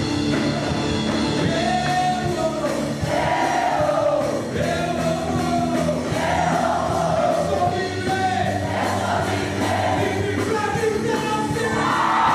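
Music: a rock-style song with sung vocals over guitar and drums, the singing coming in about two seconds in.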